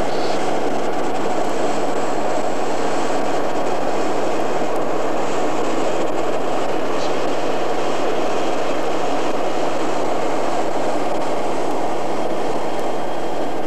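Lockheed P-3 Orion's four Allison T56 turboprop engines droning steadily as the aircraft flies past overhead.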